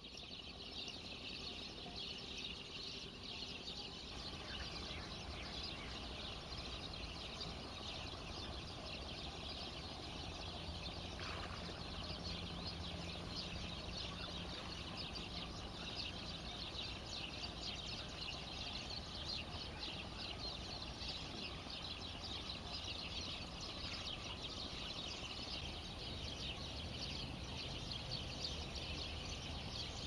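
Wetland ambience: a dense, steady chorus of high-pitched chirping over a low rumble.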